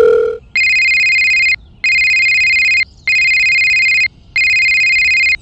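Mobile phone ringtone sound effect: an electronic ring in about one-second bursts with short gaps, four times. It follows a steady dial tone that cuts off in the first half-second.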